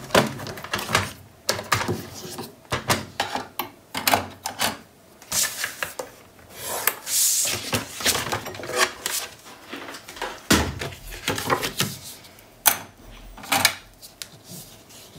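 Cardstock being handled and scored on a scoring board: a string of sharp clicks and knocks as the card and board are shifted and tapped, with a longer scrape around the middle as the scoring stylus is drawn along a groove.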